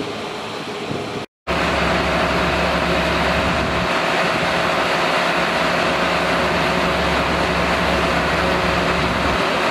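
Fire engine's engine running steadily at a constant pitch, a loud even drone with a low hum, as it drives the pump feeding the hoses laid out from it. The sound cuts out briefly about a second in.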